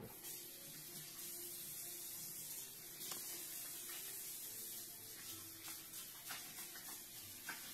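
Kitchen faucet running steadily into a farmhouse sink as hands work under the stream, with a few faint knocks.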